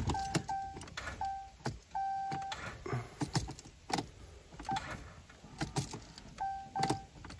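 Keys jangling and clicking in a truck's ignition, with the dashboard warning chime beeping in short, uneven bursts and a few sharp clicks. The engine does not crank: the truck's battery is dead and the jump starter is not bringing it back.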